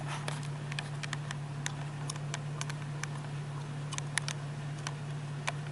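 Steady low hum of a vehicle heard from inside its cabin, with scattered small clicks and ticks, several a second at irregular spacing.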